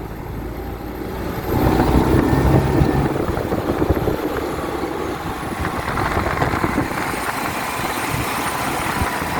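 Volkswagen 8-140 truck's intercooled diesel engine running, getting louder about a second and a half in.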